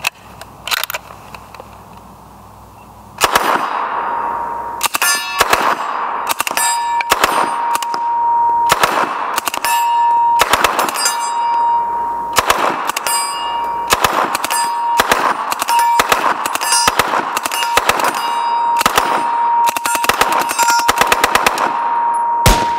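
Suppressed Smith & Wesson Model 76 and MAT-49 submachine guns firing together in rapid bursts and quick strings of shots, starting about three seconds in. A steady high ringing tone runs under the shooting.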